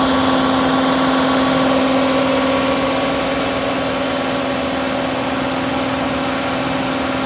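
Diesel engine of an ISEKI HJ6135 combine harvester running at a steady speed while its unloading auger is positioned over a bulk grain bag, with a steady pitched hum over the engine noise.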